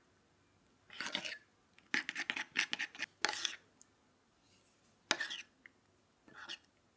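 A metal spoon scraping against glass in several short strokes with pauses between, and a few light clicks.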